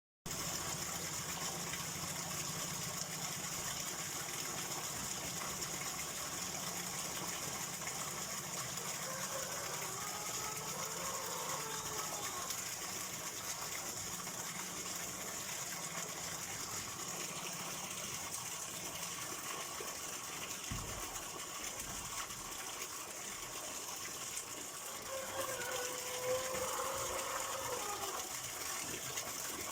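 Flowing water rushing steadily, a continuous even hiss of a stream or water running over rocks.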